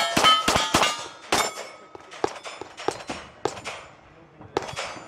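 A rapid string of pistol shots, each answered by the clang of a hit steel plate, with the first plates ringing on for a moment. The hits come a few per second and grow fainter toward the end.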